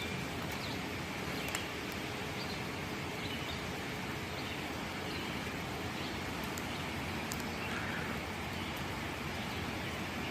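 Steady outdoor background noise with faint, scattered bird chirps and a few light clicks.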